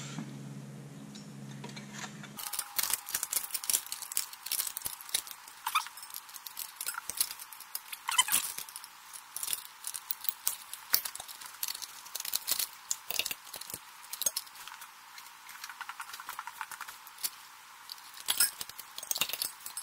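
Irregular light metallic clicks and clinks as a sheet-metal inter-cylinder baffle and its spring hook are worked into place between the cylinders of a Lycoming O-320 aircraft engine.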